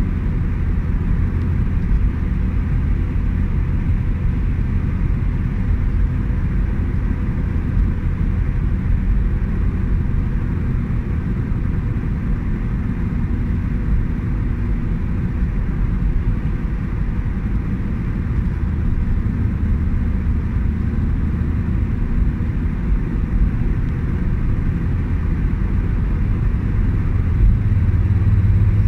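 Inside a car's cabin at highway speed: steady low rumble of engine and tyre noise, growing a little louder near the end as the car draws alongside a coach.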